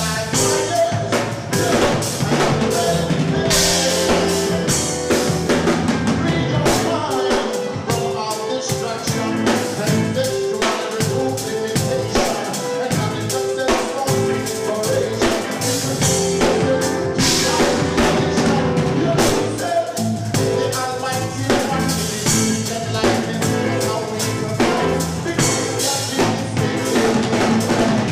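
Live band playing an instrumental passage without vocals: a drum kit with rapid snare and bass-drum hits drives it, over held notes from pitched instruments.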